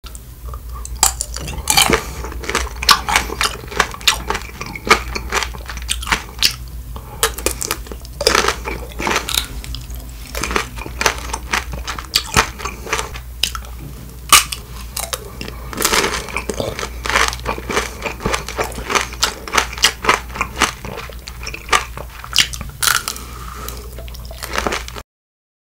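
Crunching and chewing of grape tanghulu: the hard candied-sugar shell cracks between the teeth in many sharp, irregular crunches, with chewing between them.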